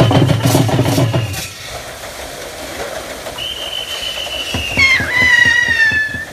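Bull-driven Persian wheel (harat) turning, with wooden gearing and buckets rumbling and clattering loudly for the first second or so, then running quieter. A long high-pitched whistle starts about halfway through and slides slightly down before stopping just before the end.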